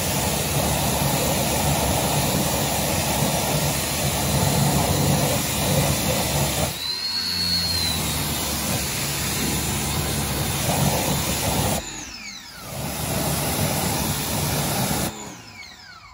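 Pressure washer running, its jet hissing against a truck's alloy wheel and tyre as the wheel cleaner is rinsed off. It drops out briefly twice and stops about fifteen seconds in.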